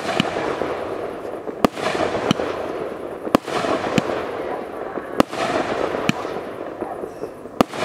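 A 28 mm, 49-shot fireworks cake firing: about seven sharp reports, roughly one a second, with a continuous crackling hiss from the bursting stars between them.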